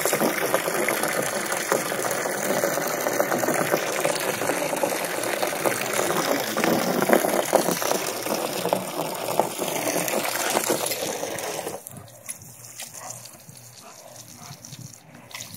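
Garden hose water gushing and splashing in a loud steady rush that drops away sharply about twelve seconds in, leaving a quieter spray.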